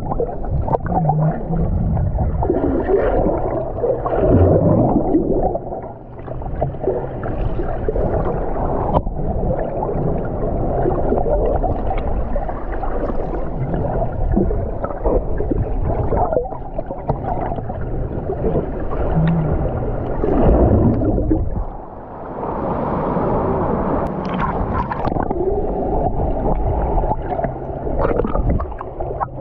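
Sea water sloshing and gurgling close against the camera, heavily muffled, as when the camera is in or under the water. The sound dips briefly twice.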